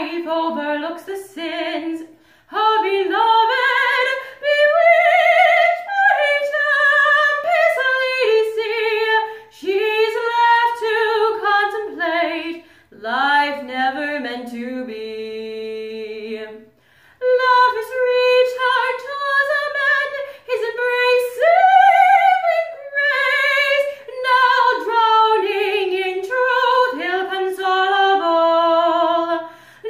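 A woman singing solo, a cappella, phrases of held and gliding notes with short pauses for breath, and a long, steady lower note about halfway through.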